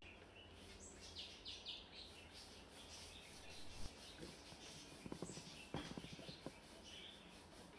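Near silence, with faint bird chirps about a second in and again near the end, and a few soft clicks partway through.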